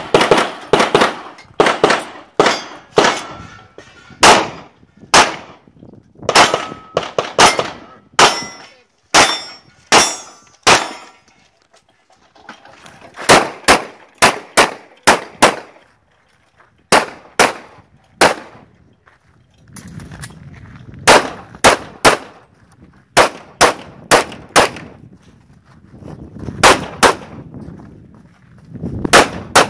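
ZEV ISI Speedgun pistol fired in fast strings of shots with short pauses between positions, some hits ringing on steel plate targets.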